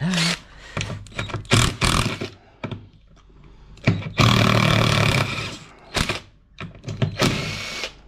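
Cordless impact driver on a long socket extension hammering out a long screw, in bursts: a few short ones in the first two seconds, a longer run of about a second and a half around four seconds in, and a last short one near the end, with clicks and knocks between.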